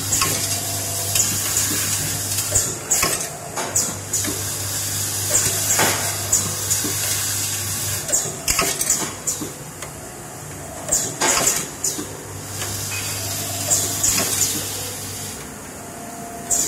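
Automatic nut tapping machine running: a steady low hum that stops about halfway through and returns for a few seconds, with repeated sharp metallic clicks and clacks as the indexing table moves the nuts under the tap. A constant hiss and a splashing sound run beneath, from the cutting oil flowing over the work.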